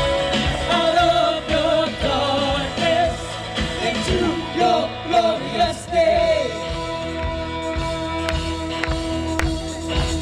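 Worship band music with drums and bass, a singer's wordless vocal runs over it, giving way to the band holding steadier chords about six seconds in.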